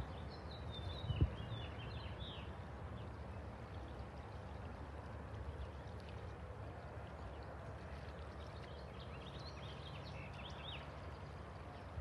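Wind buffeting the microphone with a steady low rumble, with a single bump about a second in. A songbird sings two short phrases of quick chirping notes, one near the start and another about nine seconds in.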